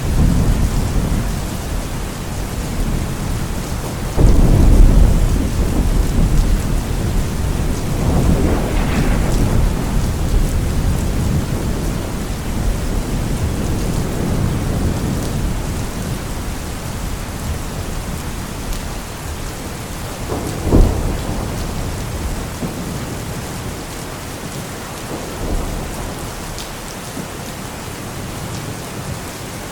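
Thunderstorm with steady rain and rolling thunder. A loud, deep rumble starts about four seconds in and another swells soon after. A sharp thunderclap comes about two-thirds of the way through, with a fainter rumble a few seconds later, as the storm slowly quietens.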